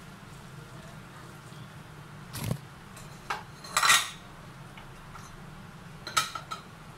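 A wooden spatula stirring noodles in a nonstick frying pan, with a few sharp knocks and clinks of kitchenware. The loudest clink comes about four seconds in and a quick cluster comes near the end, over a steady low hum.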